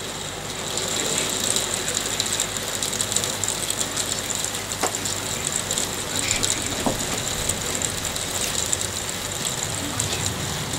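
Hailstones hitting hard surfaces in a hail shower: a dense rattle of many small sharp clicks that gets louder about a second in.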